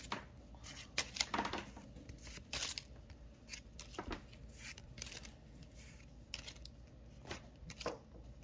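Pokémon trading cards being slid off a small stack and flicked to the front one at a time, giving short card swishes and snaps at irregular intervals, one every second or so.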